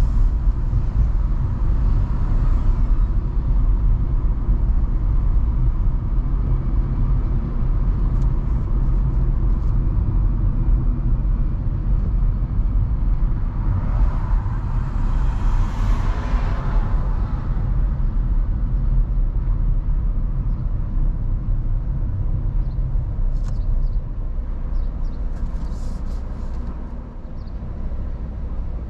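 Car driving on a city street, heard from inside the cabin: a steady low road and engine rumble, with a broader hiss swelling up about halfway through and the noise easing near the end as the car slows to a stop.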